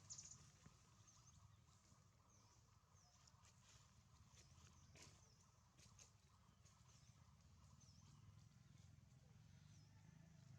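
Near silence: faint forest ambience with a small high chirp repeated about once a second and a few faint clicks.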